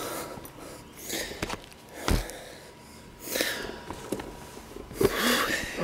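Bicycle rolling along a paved road, with knocks and rattles from bumps picked up through the bike-mounted camera, one heavier thump about two seconds in. Bursts of rushing noise come about every two seconds.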